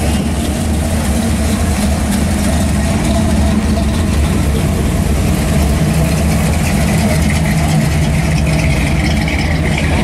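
Engines of classic Chevrolets rumbling steadily at low speed as they drive slowly past one after another: a C10 pickup, a 1963 Impala, then a 1969 Camaro Z28.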